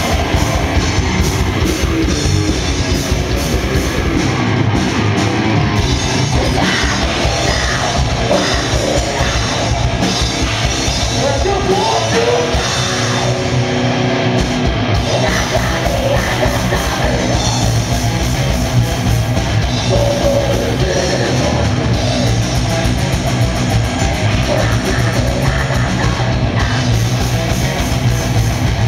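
Live heavy rock band playing loud: electric guitars, bass and drum kit with a vocalist singing into the microphone.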